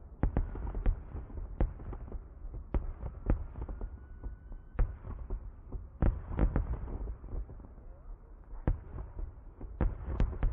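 Aerial fireworks shells bursting: a rapid run of bangs and crackles, densest in the first second and again around six seconds in, with scattered single bangs between and a few more near the end.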